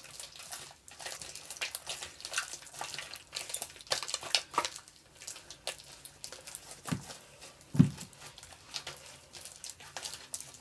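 Slime being worked by hand and scraped out of its container: a scattered run of small sticky clicks and squelches, with one dull thump about 8 seconds in.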